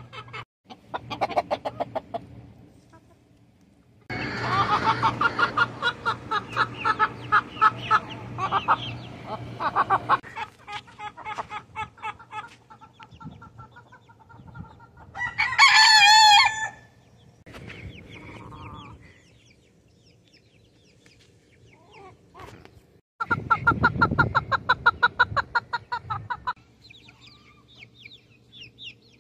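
A flock of chickens clucking, with long runs of rapid, repeated clucks and quieter scattered calls between. A rooster crows once about halfway through, the loudest sound.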